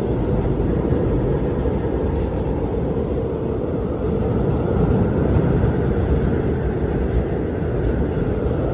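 Wind howling: a steady low rush with a faint higher howl that swells and fades.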